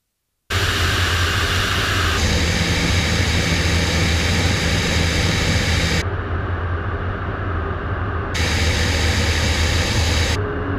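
Walter turboprop engine and propeller of a Thunder Mustang running steadily in flight: a loud drone with a low propeller hum, picked up by the aircraft's onboard cameras. It starts abruptly about half a second in, and its treble shifts suddenly a few times as the audio switches between cameras.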